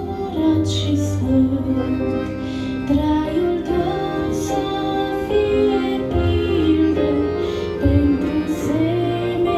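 A woman singing a Christian worship song in Romanian into a handheld microphone, over instrumental accompaniment with steady low bass notes.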